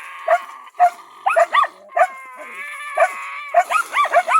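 Karelo-Finnish Laikas barking in quick, high-pitched yelps at a raccoon dog they have brought to bay, with a drawn-out whining cry about two and a half seconds in.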